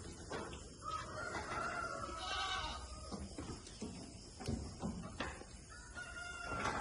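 A rooster crowing twice in long, drawn-out calls, the first about a second in and the second near the end, among scattered short knocks.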